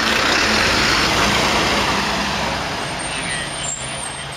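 A MAN turntable-ladder fire truck's diesel engine and tyres passing close by, loudest at first and fading as it drives away.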